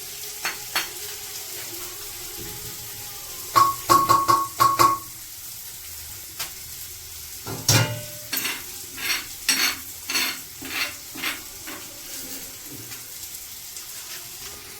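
Onion and tomato masala sizzling in a pan while a metal spoon stirs it, clinking and scraping against the pan. There is a burst of clinks with a brief ring about four seconds in, and a run of stirring knocks from about eight to eleven seconds.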